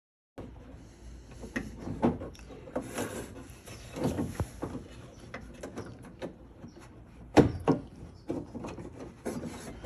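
Irregular clicks, knocks and rubbing of hands working on metal and plastic parts inside a car door. The loudest, sharpest knock comes about seven and a half seconds in.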